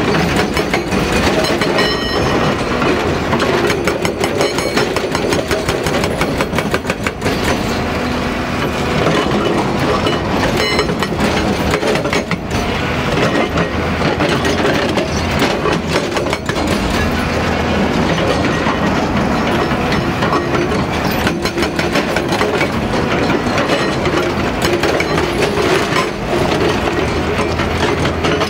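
Hyundai 215 SMART Plus crawler excavator working: its diesel engine runs steadily under a dense, continuous metallic clatter of rapid knocks.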